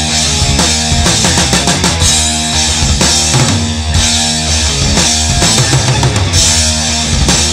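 Black/thrash metal recording: a loud, dense full-band passage with a driving drum kit under sustained distorted guitar and bass.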